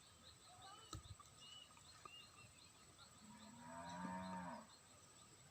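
A cow mooing once, a long low call about three and a half seconds in, over faint, evenly repeated high chirping. A single sharp click comes about a second in.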